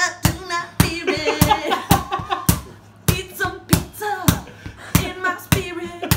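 A woman singing without clear words over rhythmic hand slaps, about three sharp hits a second.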